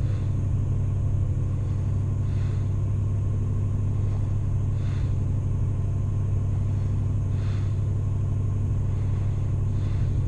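Car engine running steadily with a strong low hum, freshly started and warming up after stalling on the first try. A faint short swish recurs about every two and a half seconds.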